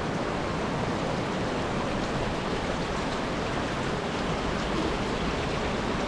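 Steady rushing of running water.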